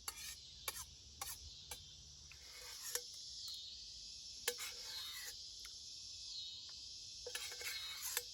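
Utensil clicking and scraping against a cooking pan as someone eats, in short scattered clicks with a few brief scrapes, over a steady high drone of insects.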